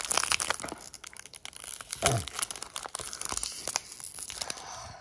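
Foil wrapper of a Select Footy Stars 2022 trading-card pack crinkling and tearing as hands pull at its stubborn sealed top. A short falling squeak comes about two seconds in.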